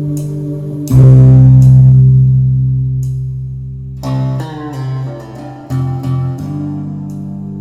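Instrumental music played back through Klipsch R-51M bookshelf speakers: deep plucked bass and guitar notes, the loudest coming in about a second in and slowly fading, with light high ticks on top.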